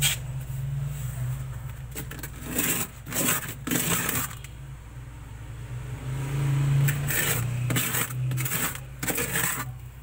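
Handling noise inside a refrigerator compartment: several short bursts of rustling and scraping as a hand touches the plastic liner, over a steady low hum.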